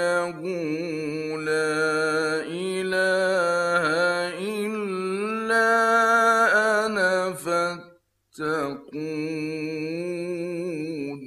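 Male Quran reciter chanting in the melodic mujawwad style: long held, ornamented notes that waver and glide in pitch. There are two short breaks for breath about eight and nine seconds in, and the voice stops near the end.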